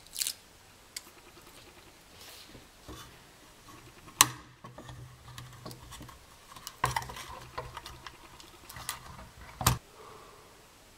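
Clear acrylic plates handled and fitted onto a small magnet-lined model train body: scattered sharp clicks and knocks of hard plastic, the loudest about four seconds in, with light rustling between them.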